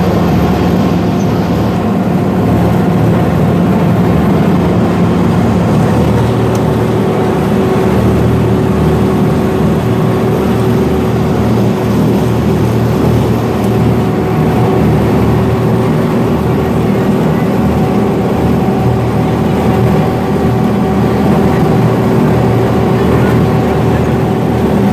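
Amphibious duck boat's engine running steadily while the boat cruises on the river, a loud even drone whose tone shifts slightly about six seconds in.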